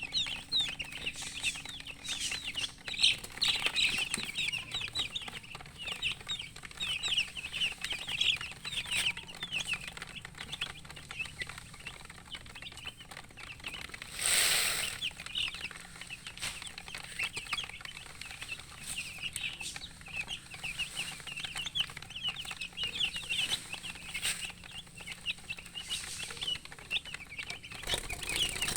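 A brood of chicks peeping continuously, many short high-pitched chirps overlapping. About fourteen seconds in there is a brief loud rush of noise, like a rustle or a flap.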